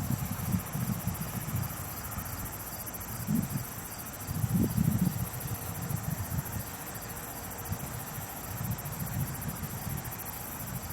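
Crickets chirping in a steady, high, fast-pulsing trill. A couple of low, muffled rumbles come about three and four and a half seconds in.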